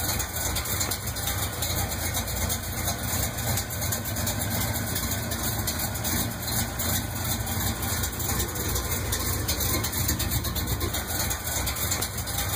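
Car engine idling steadily with a low, even rumble.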